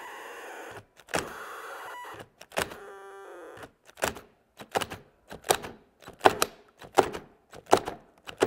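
DeWalt and Milwaukee cordless drills coupled chuck to chuck and stalling against each other. The motors run in short strained spells that cut out as the drills' overload cutoff trips. From about four seconds in they give a quick string of brief stabs, roughly every three-quarters of a second, as the cutoff is repeatedly bypassed.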